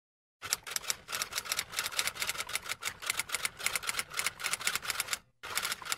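Typewriter sound effect: rapid, even key clicks, about seven or eight a second, with a brief break about five seconds in before the clicking resumes.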